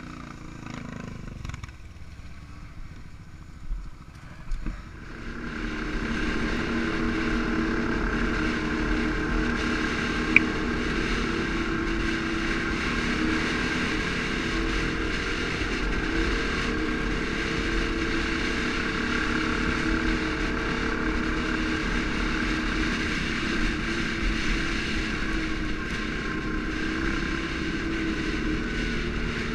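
ATV engine running steadily, coming in loud about five seconds in after a few knocks, with one sharp click about ten seconds in.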